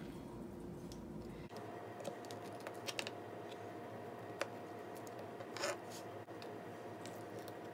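Knife slicing through a stick of butter and tapping the plastic cutting board: faint, scattered clicks and scrapes.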